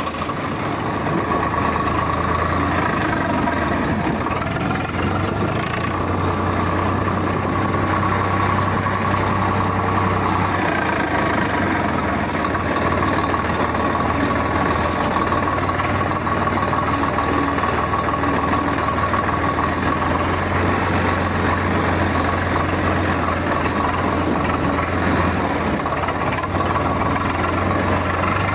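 Swaraj 855 tractor's diesel engine running steadily at low revs, heard close up from the driver's seat.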